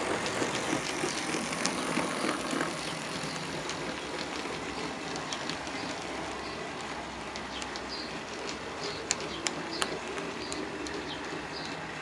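OO gauge model train running on its track: a steady rolling rumble of wheels on rail, with a regular light ticking in the second half and a few sharper clicks a little after nine seconds.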